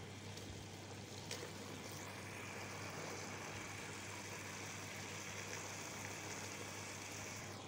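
Mutton and bottle-gourd curry sizzling softly in a clay handi: a steady low hiss, with one light knock about a second in.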